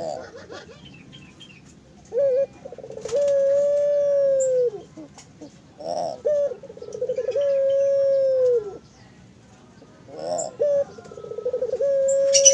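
Puter (domestic Barbary dove) cooing three times. Each call is a short note, a quick rolling trill, then a long drawn-out coo that falls away at the end. Faint high chirps from other small birds come between the calls.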